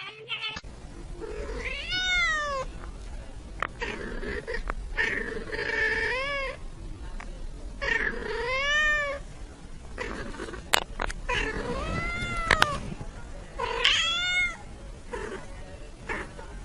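A domestic cat meowing over and over: about five long, drawn-out meows, each rising and then falling in pitch, a few seconds apart. Two sharp clicks come in between.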